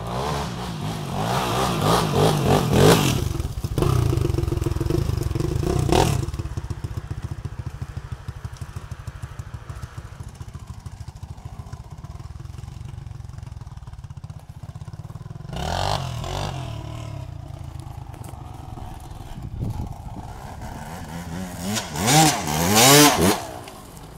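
Dirt bike engines revving hard as the bikes ride past, in bursts near the start, around six seconds in, around sixteen seconds and loudest near the end. In between, an engine idles with a steady low putter.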